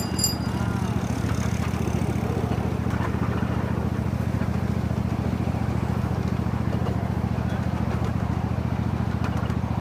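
Miniature park train running along its track: a steady low engine drone with a fast, even pulse.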